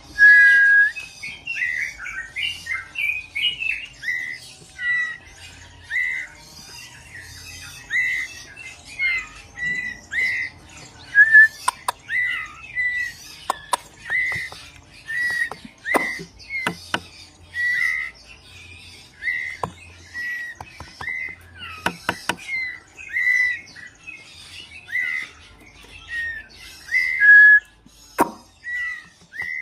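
Bird calls: short chirps repeated about once a second, some gliding up or down, with a few sharp clicks in between.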